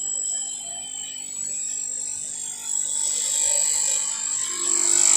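A steady, high-pitched chorus of calling animals, with fainter wavering calls beneath, growing louder in the second half.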